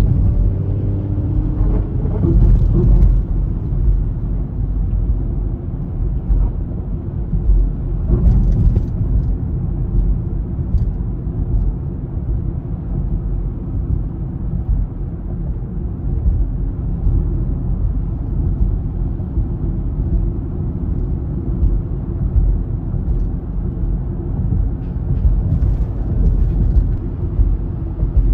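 Steady low road rumble of a car in motion, tyre and engine noise heard inside the cabin, with a few brief hissy swells about two and eight seconds in.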